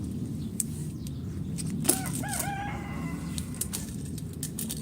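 A rooster crowing once, about two seconds in: a wavering start that settles into a held note for about a second. Under it there is a steady low rumble and scattered sharp clicks.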